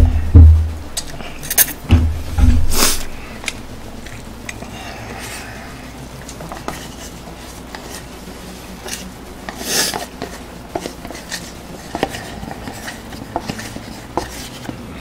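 Fast eating of instant noodles from a paper cup: chopsticks clicking and scraping against the cup, with scattered small knocks on a tray and a couple of brief slurps. Heavy thumps in the first few seconds as a milk carton and cup are set down.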